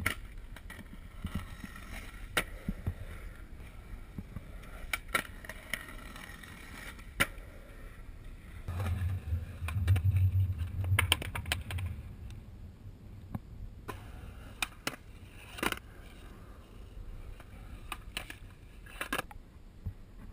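Skateboard on concrete: wheels rolling, with sharp clacks of the board popping, hitting and landing. A louder low rumble runs for about three seconds around the middle, while the board slides along a ledge.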